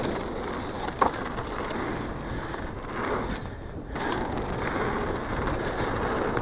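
Downhill mountain bike rolling fast down a dirt trail: a steady rush of knobby tyres on dirt and wind on the microphone, with a sharp clack about a second in.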